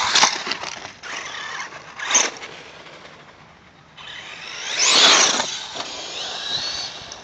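Traxxas 1/16 E-Revo VXL radio-controlled truck's brushless electric motor whining in repeated bursts of throttle as it drives over dirt. The loudest surge is about five seconds in, with a rising and falling high whine just after it.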